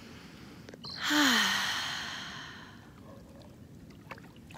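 A person's long breathy sigh about a second in: a short falling 'ah' at the start, then the breath fades away over about two seconds.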